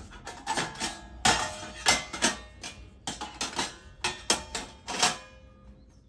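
Pans and parts of a buffet serving set knocking and clinking as they are fitted into place, a quick string of knocks with short ringing, thinning out near the end.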